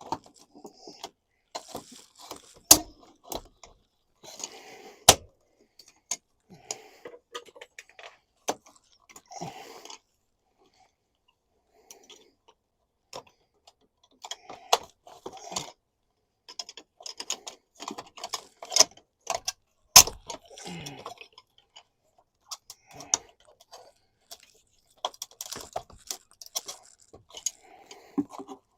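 Hand-tool work on a fitting being taken apart: irregular clicks, rattles and scraping, broken by a few sharp knocks.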